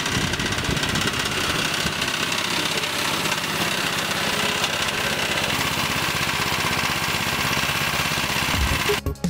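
Small air-cooled single-cylinder engine on a homemade go-kart idling steadily. Music cuts in right at the end.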